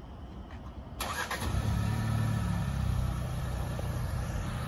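Car engine idling with a steady low hum, which comes in about a second in after a quieter stretch.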